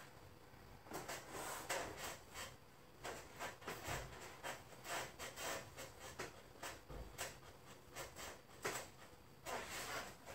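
Faint, irregular rustling and rubbing of hands, clothing and the table's white cover as a patient's leg is bent and laid back on a treatment table, with two soft thumps about four and seven seconds in.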